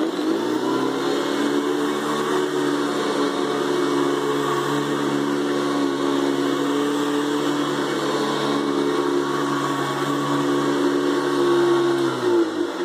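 Hoover Convertible upright vacuum cleaner running: its motor and brush roll spin up with a rising whine at the start, run at a steady pitch, then wind down with a falling whine as it is switched off near the end.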